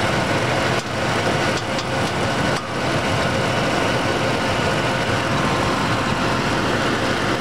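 1996 Ford F-150's engine idling steadily, heard close up under the open hood. It runs nice and quiet, its exhaust leaks repaired: the passenger-side manifold's broken bolts were drilled out and the manifold-to-downpipe studs replaced.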